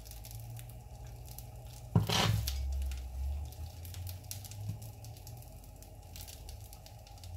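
Hands pressing and patting soft, sticky radish paratha dough flat on a board, over a steady low hum. About two seconds in comes one sudden thump with a brief rustle, then quieter small handling sounds.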